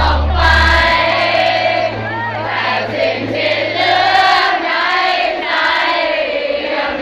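A concert crowd singing along loudly with the music, many voices together like a choir. Low bass notes from the stage drop away in the first few seconds, leaving mostly the crowd's voices.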